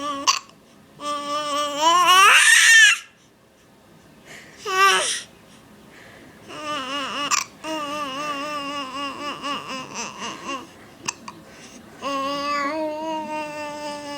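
Baby babbling in long, held vocal sounds, with a loud rising squeal about two seconds in and a short, high gliding cry near five seconds. A single brief sharp sound comes near eleven seconds.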